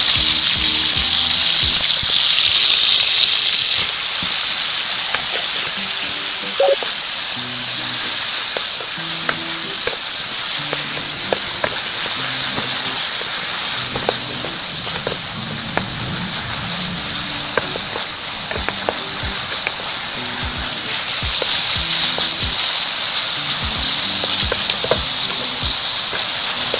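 Beef strips sizzling loudly as they stir-fry in hot oil in a wok, with the light scrape and tap of a wooden spatula turning them. The sizzle eases a little in the middle and picks up again about three quarters of the way through. Soft background music plays underneath.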